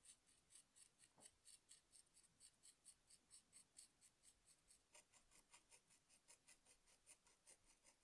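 Faint quick scratching of a pointed tool scoring wet clay, short strokes at about four a second, roughening the rim of a clay dome and the matching circle on the clay base so the two pieces can be joined.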